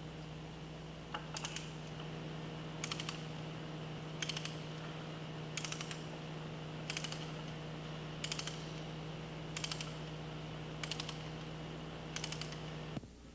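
A ratchet wrench driving a torque multiplier to loosen a large nut. Its pawl clicks in nine short quick runs about every one and a half seconds, one run per return stroke of the handle, over a steady low hum. The sound cuts off suddenly near the end.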